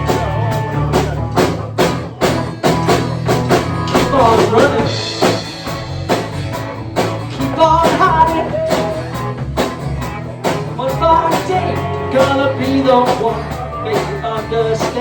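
Rock band playing: a steady drum-kit beat with guitar and bass, and a voice singing in places.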